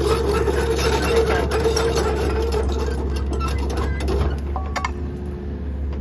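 Steady low engine hum with a rushing noise over it; a higher tone in the hum drops away about four seconds in.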